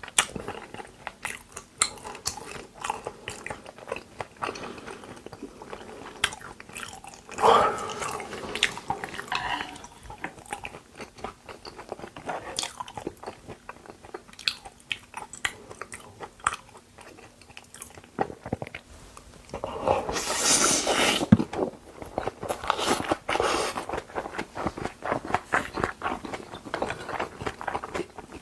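Close-miked chewing of raw beef dishes (yukhoe): a steady run of wet, clicking mouth and bite sounds. There is a short louder sound about a quarter of the way in, and a louder, hissier stretch lasting about a second and a half around two-thirds of the way through.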